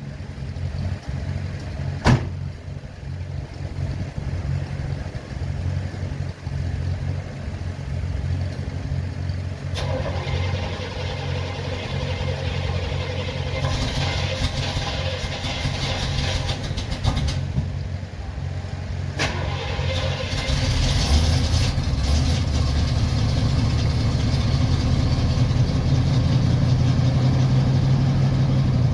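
1977 Chevrolet Corvette's 350 small-block V8 at a hard cold start, running with a few sharp clicks along the way. About twenty seconds in it turns louder and steadier.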